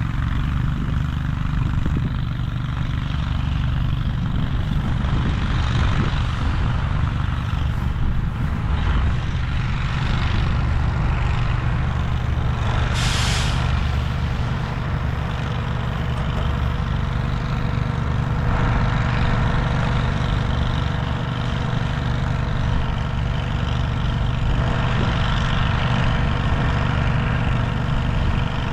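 A heavy vehicle's engine running steadily, with one short hiss of released air about halfway through, typical of an air brake.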